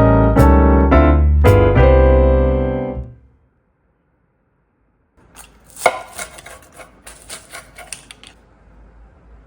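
Piano music that ends about three seconds in. After a short silence comes a quick run of light clicks and knocks from kitchen work.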